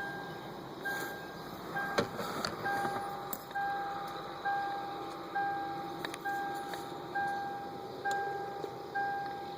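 A vehicle's reversing alarm beeping steadily about once a second, each beep a single mid-pitched tone about half a second long, over a steady low rumble. A sharp click sounds about two seconds in.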